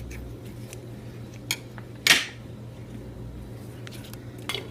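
Paracord being cut and handled with scissors while its inner strands are removed: scattered light clicks, then one short sharp rasp about two seconds in. A steady low hum runs underneath.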